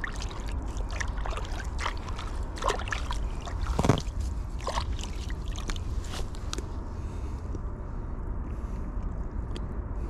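Shallow creek water splashing and sloshing around a large carp held by hand in the shallows, over a steady low rumble. Small splashes come in quick succession, with the loudest about four seconds in, and they thin out near the end.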